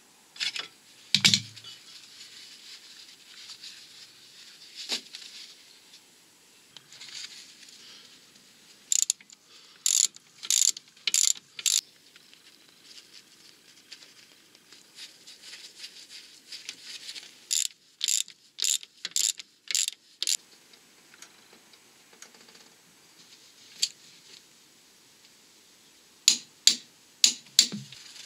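Socket ratchet clicking in three short runs as the brake caliper support bolts are run in, with a few lone metal knocks between them.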